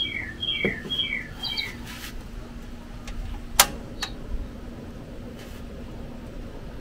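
A bird calling four times in quick succession, each call a short high note that drops in pitch. About halfway through comes a single sharp click.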